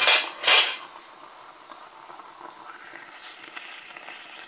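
Stovetop cooking: two short hissing bursts about half a second apart, then a faint, steady hiss from the pancake frying in its pan on the gas burner.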